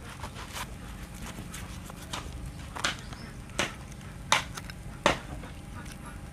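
A large curved chopper knife scraping and cutting a small fish held in the hand: a run of short, sharp scrapes, about six, spaced irregularly, the loudest near the end.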